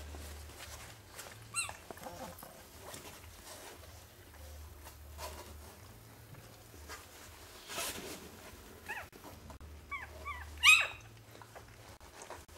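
Newborn Manchester terrier puppies squeaking and whimpering in short, high-pitched cries: one early, then a few more and a cluster near the end, the loudest about ten and a half seconds in. Soft rustling of bedding as they shift.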